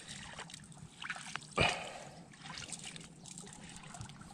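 Shallow muddy water trickling and dripping as fish are groped for by hand, with a few small splashes, one brief louder splash about one and a half seconds in.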